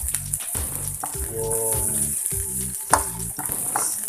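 Chopped onions sizzling in oil in a nonstick pan, stirred with a spatula, with one sharp knock of the spatula against the pan about three seconds in.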